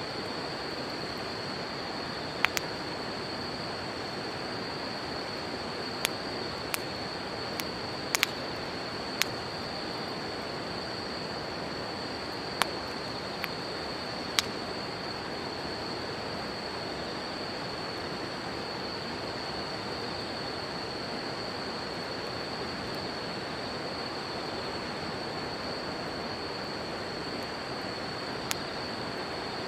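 Wood campfire crackling, with about a dozen sharp, irregular pops, over the steady rush of river water and a continuous high-pitched insect trill.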